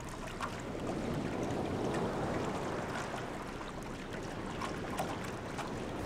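Wind and sea aboard a sailing yacht under way: a steady rushing of wind and water, swelling slightly about two seconds in, with a few faint clicks.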